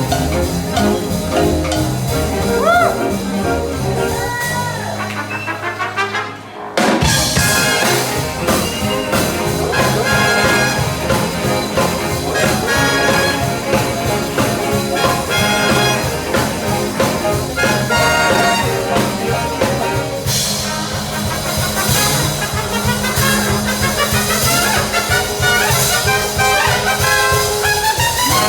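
Live swing big band playing, trumpets and trombones leading over a steady rhythm-section beat. About six seconds in the band thins to a held low note and breaks off briefly, then comes back in at full volume.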